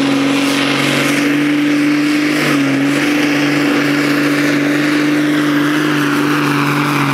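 Tractor-pulling tractor's engine running flat out at high, steady revs, loud and unbroken, its pitch dipping slightly about two and a half seconds in.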